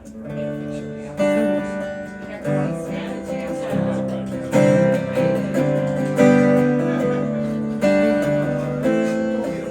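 Acoustic guitar strumming chords in an instrumental passage, with a sharp strum accent every second or two.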